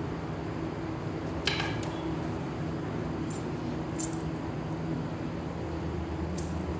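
A few light metallic clinks of hand tools being handled and set down, over a steady low hum.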